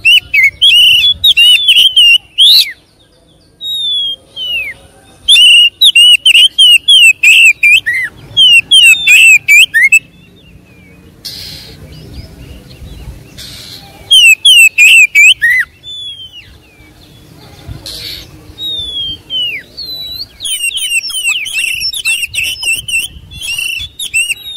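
Oriental magpie-robin singing at full voice: loud, rapid runs of varied whistled notes that swoop up and down, in phrases of a few seconds broken by short pauses, softer in the last third.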